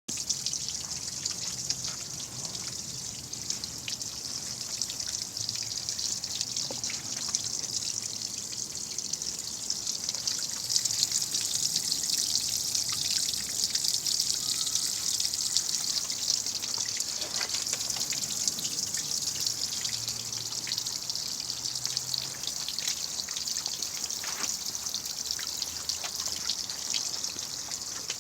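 Water trickling and splashing steadily, a constant hiss with small drips and ticks.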